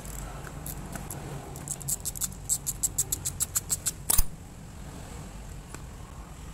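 Ratchet wrench clicking in a quick even run of about a dozen clicks, roughly six a second, as a fitting on a steering rack housing is worked loose, followed by one sharp metallic knock.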